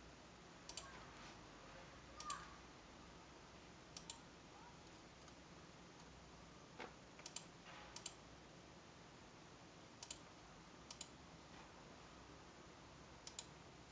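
Faint computer mouse clicks, most in quick pairs and spaced a second or two apart, over near silence.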